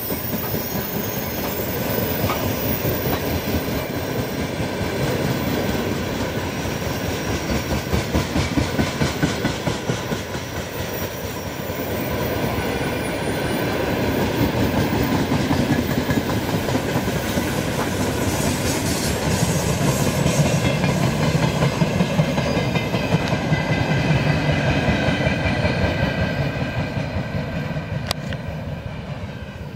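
Freight train of open-top gondola wagons rolling past close by: steady clatter of wheels over the rails, with some high wheel squeal. It fades near the end as the last wagons move away.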